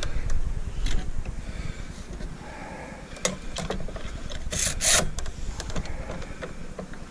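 Bar clamps being fitted and tightened on a steam-bent red oak strip against a plywood bending form: scattered clicks and knocks of metal and wood, with a short scraping rasp about four and a half seconds in.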